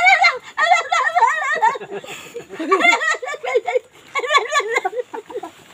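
A woman laughing and giggling in quick high-pitched bursts, mixed with wordless playful vocal sounds.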